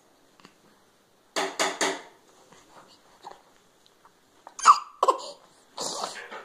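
Short playful vocal sounds: three quick breathy huffs a bit over a second in, then a brief high squeal and a few more breathy bursts near the end.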